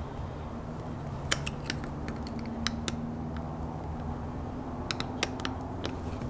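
Scattered light clicks and taps of a small hand tool on plastic trim parts, over a steady low hum.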